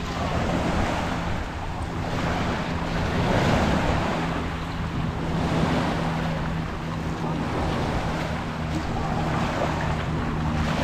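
Small waves washing up and breaking on a pebble beach, the wash swelling and easing every few seconds, with wind on the microphone and a steady low hum underneath.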